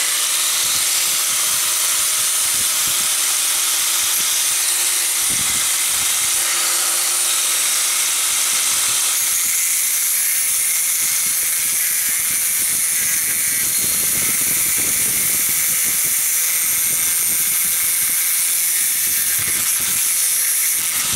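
A 4.5-inch angle grinder starts up and cuts through a clamped strip of sheet metal with an abrasive disc. The steady motor whine runs under the hiss and rasp of the disc biting into the steel.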